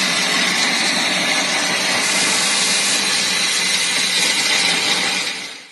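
Dremax DX660 centrifugal grater running, its spinning drum blades grating almonds into meal: a loud, steady whir and grinding hiss over a low motor hum, fading out near the end.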